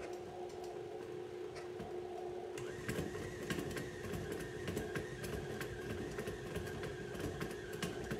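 KitchenAid stand mixer running steadily, its motor humming as it beats a stiff chocolate cookie dough. From about three seconds in, irregular ticks and knocks from the beater working the dough in the metal bowl join the hum. The motor cuts off right at the end.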